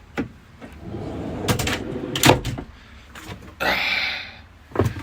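Under-fridge storage drawer/step being handled: a low sliding rumble with several knocks and clicks, the loudest a little after two seconds in, then a short rustling hiss near four seconds and more clicks near the end.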